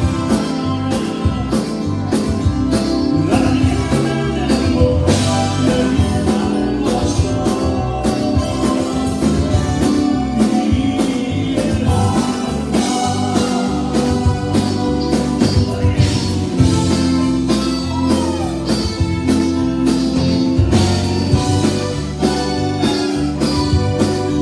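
Live Tejano band playing: button accordion, electric guitars, bass and a steady drum beat, with singing over the top.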